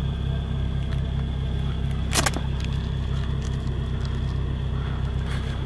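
2004 Nissan 350Z's VQ35DE V6 idling steadily through Strup headers, catless test pipes, a Fujitsubo Y-pipe and a Fujitsubo Legalis R exhaust. A short sharp noise stands out about two seconds in.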